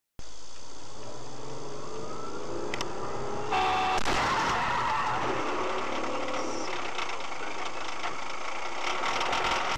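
Car on a winter road: steady engine and road noise, with a short pitched tone about three and a half seconds in, then a louder rush of noise.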